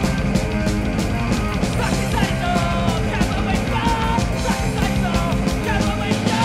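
Punk rock band playing live: electric guitars, bass and drums pounding steadily, with the singer's shouted vocals coming in about two seconds in.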